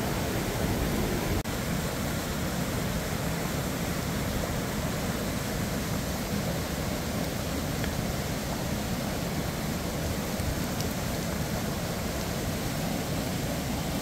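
Steady rush of a flowing creek and waterfall: an even wash of water noise. There is a brief click and dropout about a second and a half in.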